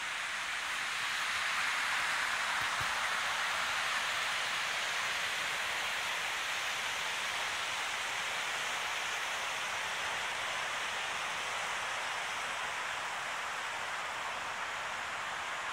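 Alpine mountain stream rushing over a stony bed, a steady hiss of running water that swells about two seconds in and eases slightly after.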